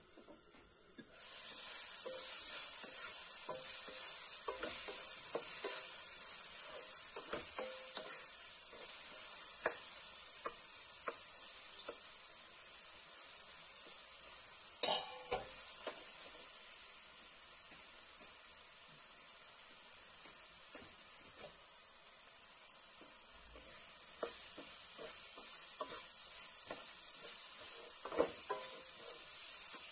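Spiced mango pieces sizzling as they fry in a pan, stirred and scraped with a wooden spatula that knocks against the pan now and then. The sizzling starts about a second in; two louder knocks come about halfway through and near the end.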